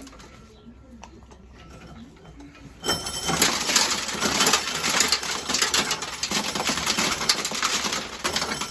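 Corn sheller stripping kernels off a cob, starting about three seconds in: a dense, fast rattle of kernels thrown against a bin.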